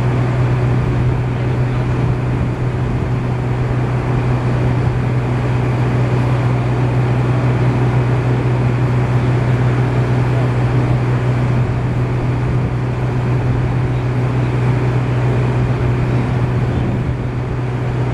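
Small engine running at a steady, constant speed, an even drone with no change in pitch.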